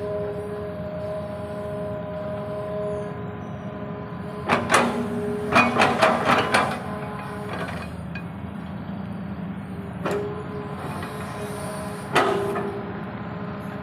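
Hydraulic excavator running steadily, its engine drone carrying a whining hydraulic tone, broken by sharp metallic clanks: one about four and a half seconds in, a quick run of several around six seconds, and single ones near ten and twelve seconds.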